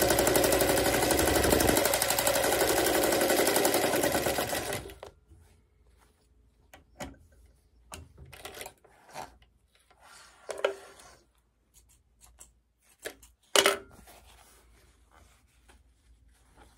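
1934 Osann 177-1 darning machine (the Singer 177-2 design), motor-driven, running at speed with a fast, even stitching rhythm, then stopping abruptly about five seconds in. After that only a few small clicks and rustles, the sharpest one near the end.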